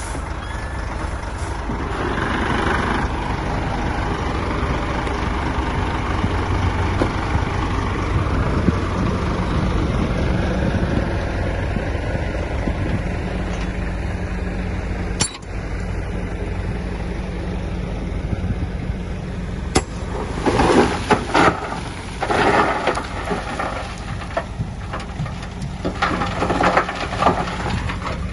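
Heavy diesel earthmoving machinery running steadily. From about twenty seconds in come repeated loud bursts of clanking and rattling.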